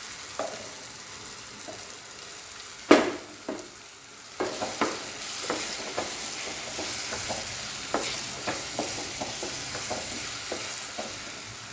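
Wooden spatula stirring ground roasted-coconut paste into sautéed tomatoes in a nonstick kadai, the mix sizzling lightly, with a run of short scraping strokes. A single sharp knock comes about three seconds in.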